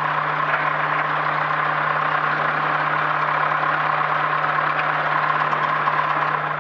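Zenith STOL CH 750 light aircraft's engine and propeller running steadily at low taxi power, heard from inside the cockpit as an even drone with a constant low hum.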